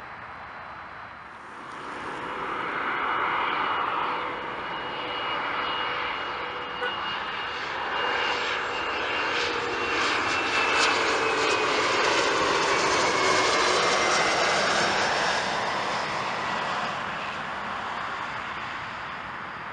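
Embraer regional jet's twin rear-mounted turbofans on landing approach, passing close with gear down. The jet noise builds, is loudest past the middle, then eases, while its whine falls in pitch as the aircraft goes by.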